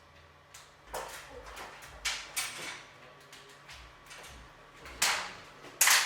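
Irregular knocks, clatters and short scrapes, as if parts and tools are being handled and set down, several to the second. The loudest knocks come about five and six seconds in.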